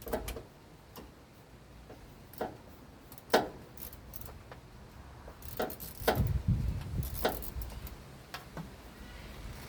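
Scattered sharp metallic clicks and clinks of hand tools and parts being handled in an engine bay, the loudest about three and a half seconds in, with a stretch of scraping and rustling from about six seconds in.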